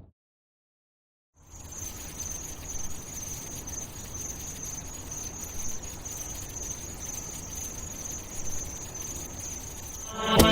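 Ambience of crickets or other insects giving a steady, unbroken high trill over a faint low hiss. It starts about a second and a half in, after a moment of silence.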